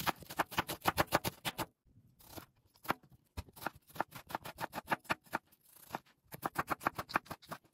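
Kitchen knife slicing onion and then tomato on a wooden cutting board: quick runs of sharp taps as the blade meets the board, several a second, broken by short pauses.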